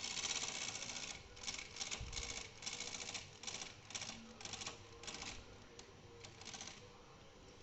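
Brother Deluxe 750 TR manual portable typewriter's mechanism clattering in a series of short rattles, one longer clatter in the first second followed by about a dozen shorter ones that grow fainter.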